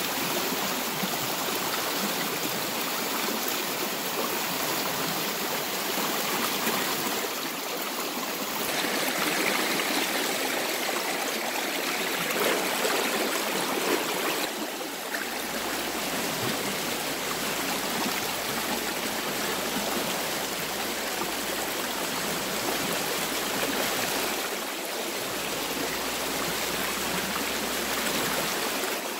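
Steady rushing of a fast-flowing river over rocks, its tone shifting slightly a few times.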